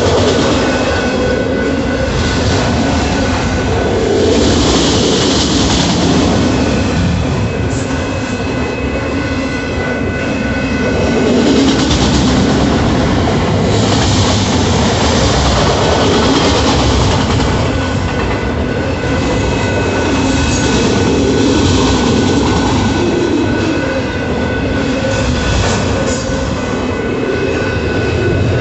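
Autorack freight cars rolling past at speed: a steady heavy rumble and clatter of steel wheels on rail, with thin high wheel squeal over it.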